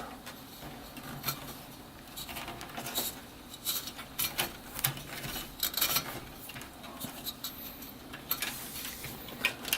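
Small handling noises as a case fan's excess wire is bundled with a short twist tie: an irregular run of light rustles, rubs and clicks.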